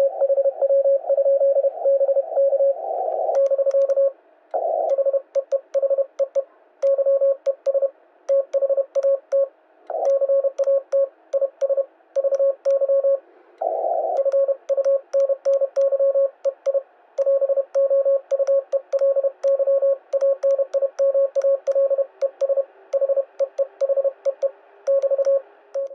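Morse code (CW) as a steady single tone of about 550 Hz keyed on and off in dots and dashes over radio hiss, a message being sent by hand on a paddle key. From about three seconds in, the paddle's contacts click sharply along with the keying.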